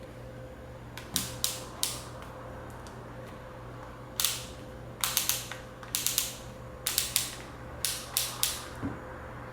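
A series of sharp clicks and snaps in small clusters, typical of handling a cordless drill/driver's plastic parts, with no motor running. A steady low electrical hum sits underneath.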